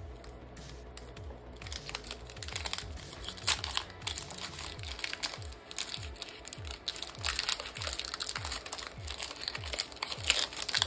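Foil Pokémon booster pack wrapper crinkling as it is handled and torn open, starting about a second and a half in. Music with a steady low beat runs underneath.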